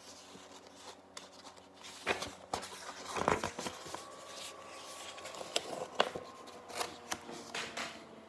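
Pages of a picture book being handled and turned: soft paper rustles with scattered small clicks and taps.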